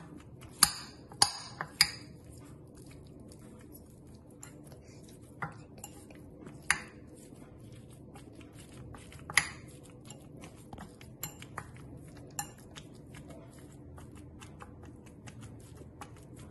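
Metal wire whisk mashing boiled potatoes in a glass bowl, its wires clinking against the glass in irregular sharp clinks: three loud ones close together about a second in, then louder clinks every few seconds with faint ticks between.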